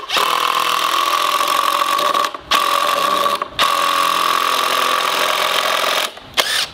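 Cordless DeWalt impact driver driving a screw into a wooden board. It runs in three long pulls with two short pauses between them, then gives a brief final burst as the screw seats.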